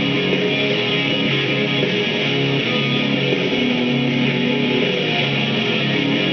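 Background music led by guitars, playing steadily at an even level.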